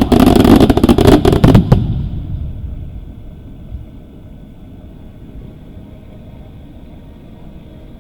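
Fireworks going off in a rapid, loud volley of bangs and crackles that dies away about two seconds in, leaving only a faint low rumble.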